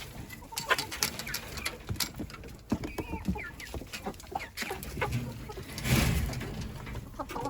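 Domestic poultry clucking and peeping in short, scattered calls, with a louder rustling burst about six seconds in.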